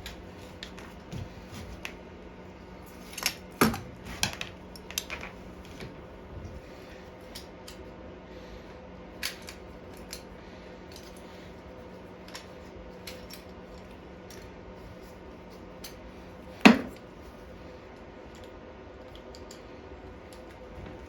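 Hand tools clicking and clinking against the metal parts of a lawn mower engine while the screws of its cover are worked out: scattered light taps, a cluster a few seconds in, and one sharp clack about seventeen seconds in, over a faint steady hum.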